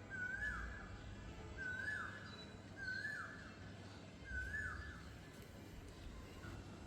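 A bird calling the same short phrase over and over, about every second and a half, each call rising then dropping in pitch; other birds chirp faintly and higher.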